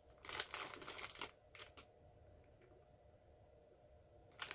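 Brief crackly rustling of a food wrapper being handled, lasting about a second near the start, followed by a few light clicks.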